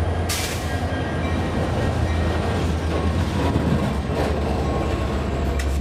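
Union Pacific diesel freight locomotives passing close by, their engines running with a steady low drone, then covered hopper cars rolling past. A short burst of hiss comes about half a second in.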